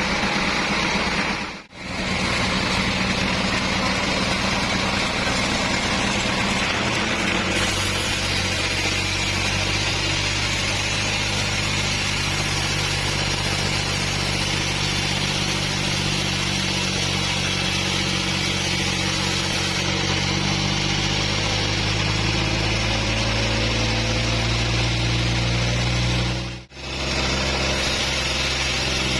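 Engine of a bandsaw sawmill running steadily at working speed, with a change in its note about seven seconds in. The sound drops out briefly twice.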